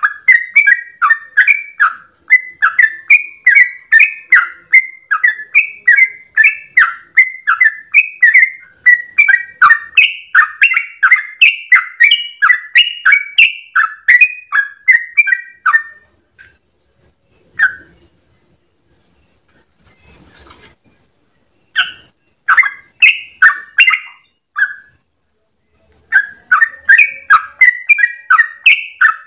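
Yellow-vented bulbul (trucukan) singing its fast chattering song, a long unbroken run of bubbly notes at about three a second. It breaks off about sixteen seconds in, then resumes in shorter bursts.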